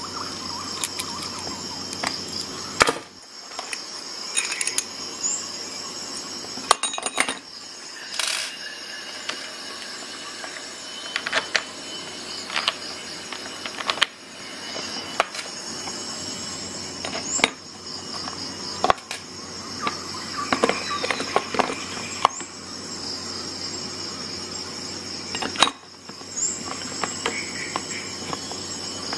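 Scattered metal clicks, clinks and knocks from a Lansky sharpening clamp, folding knife and hones being handled in their plastic case, over a steady high-pitched background tone.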